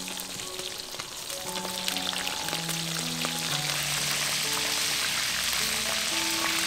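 Fish frying in hot oil in a steel wok: a dense sizzling hiss with crackles, growing louder about two seconds in and then holding steady.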